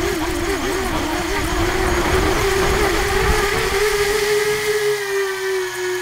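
Brushless motors and three-blade propellers of an RCExplorer Tri-Mini tricopter humming, recorded on board, with wind rushing over the microphone. The motor pitch wavers up and down with the throttle, then settles to a steadier tone as the wind noise drops away about four and a half seconds in.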